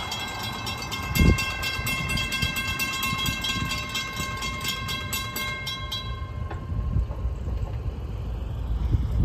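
A railroad crossing warning bell rings in quick, even strikes while the crossing gates lower, then cuts off suddenly about six seconds in once the gates are down. A low rumble runs underneath and grows toward the end, with a short thump early on.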